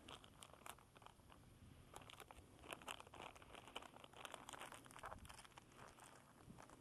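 Faint crinkling and crackling of a plastic soft-bait packet being handled and opened, a run of small irregular crackles and rustles.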